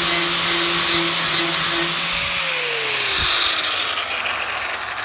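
Small power grinder with an abrasive disc grinding down the weld bead on a cracked metal aircraft fairing. About two seconds in it is switched off, and its whine falls away as the disc spins down.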